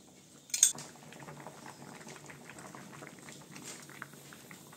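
Water with bottle gourd and tomato pieces boiling in an aluminium pot, a steady bubbling with many small pops. A sharp clink about half a second in, and a metal ladle stirring through the pot near the end.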